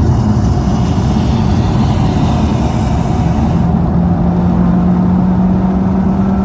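A car on the move, heard from the cabin: a steady engine and road rumble. About halfway through, a low drone sets in and climbs slightly in pitch as the car picks up speed.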